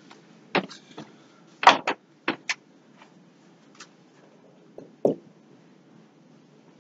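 About six scattered knocks and clicks as people move about a small room, with chairs being shifted and the interviewer moving to the whiteboard. The loudest knock comes about two seconds in, over a faint steady hum.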